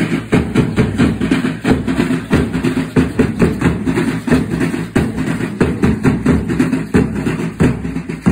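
Bass drums beaten with sticks in a steady, fast dance beat of about three strokes a second, the drum rhythm for a matachines dance.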